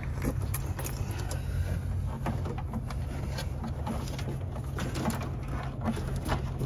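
Light scattered clicks and rustles of a thin sensor cable being handled and pulled through the wiring inside an inverter enclosure, over a steady low rumble.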